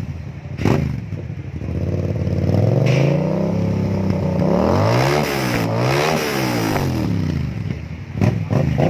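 Yamaha MT-07 parallel-twin motorcycle engine being revved: a quick blip near the start, then a climb to a held rev, several rises and falls in the middle, and two sharp blips near the end.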